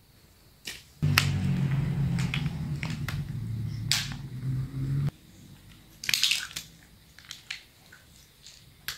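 Small plastic snap-together building blocks clicking and clattering as hands handle and reshape a block robot. A loud steady low hum comes in suddenly about a second in and cuts off suddenly at about five seconds.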